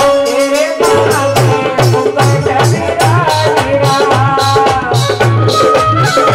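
Live devotional bhajan: a woman singing over a steady drum beat with shaken and struck percussion. The drum drops out for a moment at the start and then comes back in.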